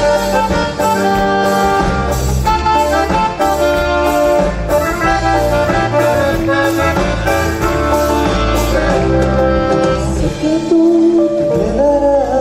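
Band playing an instrumental passage of a Latin American popular song: a sustained melody over bass, with a steady beat of cymbal strokes. A voice enters near the end.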